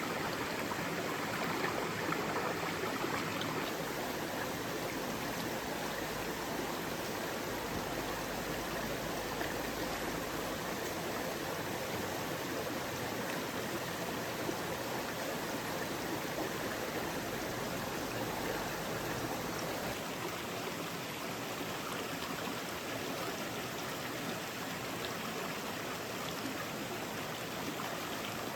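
Mountain stream running, a steady rush of water with no change throughout.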